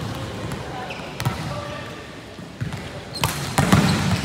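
A volleyball striking hard: a few sharp thuds, one about a second in and two close together near the end, over steady background noise.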